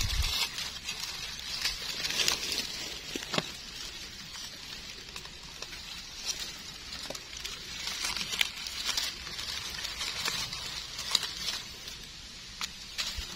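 Dry leaf litter crackling and rustling under gloved hands as wild mushrooms are dug out, with small scrapes of a knife trimming soil from the stems. It comes as a run of irregular light crackles and clicks.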